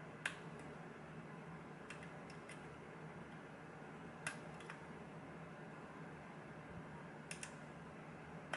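Pin tumbler lock being single-pin picked: faint, scattered small clicks of the pick and pins inside the cylinder, about eight over several seconds, some in quick pairs, over a steady faint hum.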